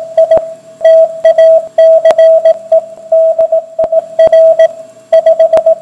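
Morse code: a single steady tone keyed on and off in short and long beeps, with scattered sharp crackles of static.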